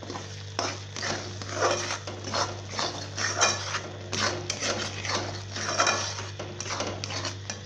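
A metal ladle scraping and knocking against the inside of a metal pot while stirring thick masala gravy, in repeated strokes about two a second.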